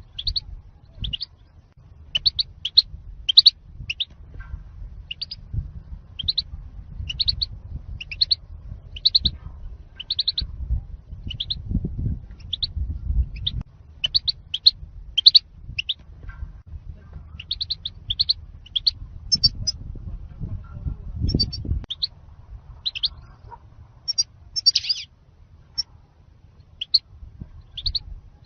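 European goldfinch giving a long run of short, sharp chirping calls, about one or two a second, used as a lure call for trapping wild goldfinches. A low rumble runs beneath the calls and drops away about two-thirds of the way through.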